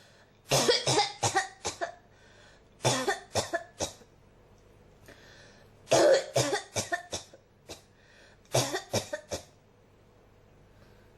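A person coughing in a fit that won't stop: four bouts of several quick coughs each, a second or two apart, with one single cough between the last two bouts.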